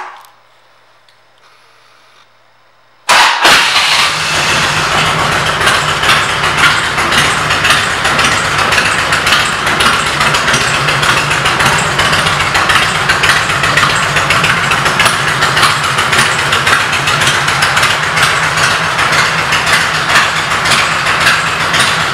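1999 Harley-Davidson Road King's Twin Cam 88 V-twin, fitted with aftermarket pipes. A click as the ignition is switched on and a short quiet pause, then the engine starts suddenly about three seconds in and idles steadily and loudly.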